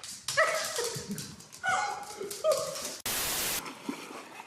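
Dog whining in three or four short, bending calls, as if answering a question. About three seconds in there is a sudden half-second burst of hiss.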